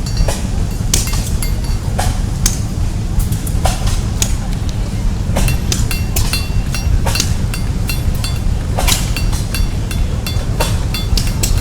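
Blacksmith's hammer striking metal on an anvil in an irregular series of sharp blows, some with a short metallic ring, over a steady low rumble.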